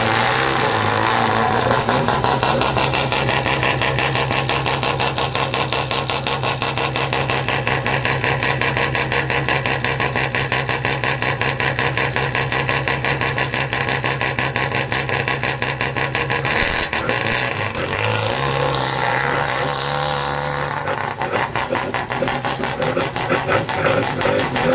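Mazda 13B peripheral-port rotary engine running with a loud, choppy pulsing idle. About 17 seconds in its note rises and changes for a few seconds as the car pulls away, then settles back into the same choppy beat.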